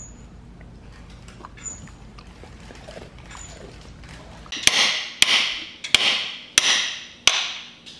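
Hammer blows on a socket handle fitted to the crank pulley bolt of a Nissan VQ35DE V6, hammered to break the bolt loose. After a stretch of quiet low hum, five sharp metallic clanks come past the halfway point, each about two-thirds of a second apart and each ringing briefly before the next.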